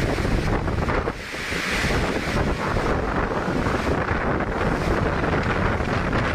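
Strong gusty wind blowing hard across the microphone, a dense, loud rushing noise.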